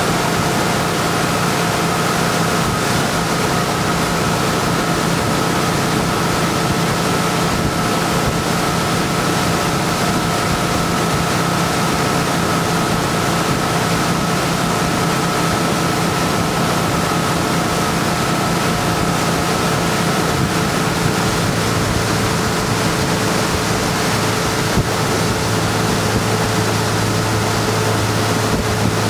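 Tow boat's engine running steadily at speed, a constant hum, over the rush of the boat's wake and wind on the microphone.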